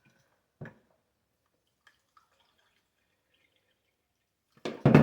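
Faint water drips and light clicks from adding a cup of water to a pot of sliced apples, with a single light knock about half a second in and a louder knock near the end.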